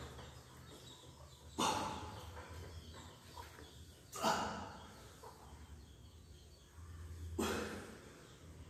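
A weightlifter's forceful breaths while straining through seated Smith-machine shoulder presses: three hard exhalations, about three seconds apart, one with each push of the bar.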